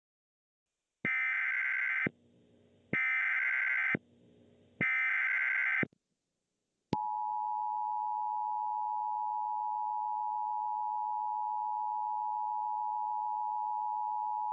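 Emergency Alert System broadcast signal. Three one-second bursts of SAME digital header data, the buzzy data tones that encode the flash flood warning, come about a second apart. About a second after the last burst, the steady two-tone EAS attention signal begins and holds.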